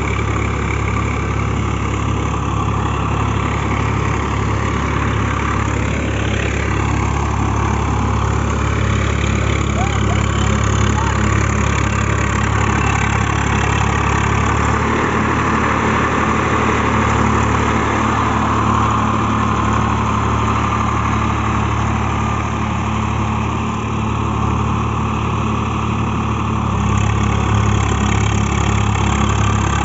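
Swaraj 744 FE tractor's three-cylinder diesel engine running steadily as the tractor drives through wet mud.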